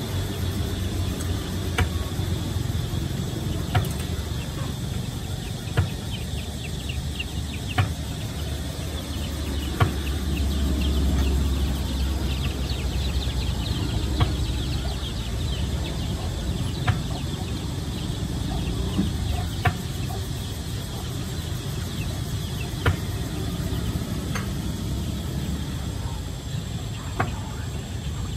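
Dumplings deep-frying in a wok of hot oil, a steady crackling sizzle over a constant low rumble, with a sharp click every two to three seconds.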